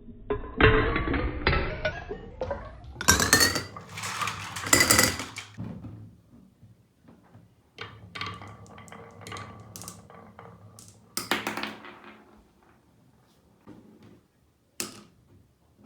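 Marbles rolling and clattering down a toy marble run: a quick run of clacks and knocks, some ringing briefly, busiest in the first six seconds and then thinning to scattered clicks.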